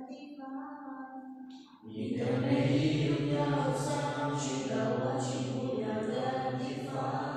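A single voice for the first couple of seconds, then a class of students chanting together in unison, louder, from about two seconds in until near the end.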